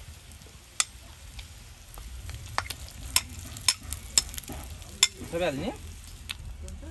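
Food frying in a pan while it is stirred, with a utensil clicking against the pan about six times. A short pitched voice-like sound rises and falls near the end.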